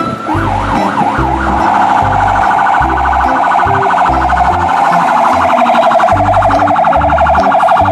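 Toy fire engine's electronic siren: a few quick rising-and-falling wails, then a fast warbling tone held steadily for several seconds.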